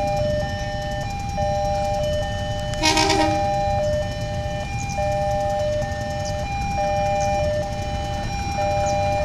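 Level-crossing warning alarm sounding a steady alternating two-tone electronic signal as a train approaches. A short horn toot sounds about three seconds in, over a low rumble.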